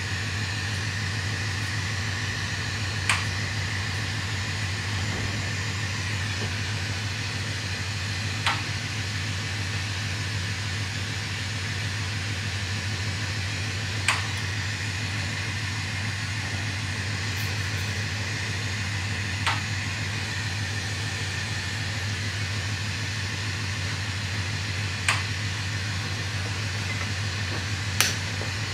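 Steady rushing of a burning glassblowing bench torch together with the studio's ventilation fan, with a constant low hum. A short sharp click sounds about every five and a half seconds, with one more near the end.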